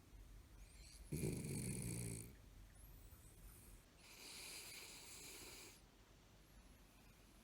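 Toy poodle snoring: a louder, rough snore about a second in, then a quieter, airy breath out about four seconds in. It sounds like sleep, but the dog is awake with its eyes open.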